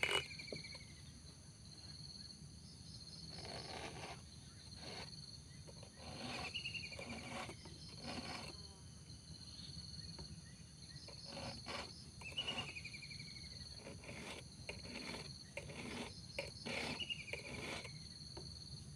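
Round file rasping through the cutters of a Robin chainsaw's chain in short hand strokes, a stroke or a few at a time with pauses. A steady high buzz of insects runs underneath.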